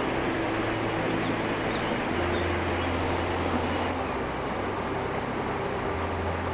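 Stream water rushing steadily over rocks, with a low steady hum underneath.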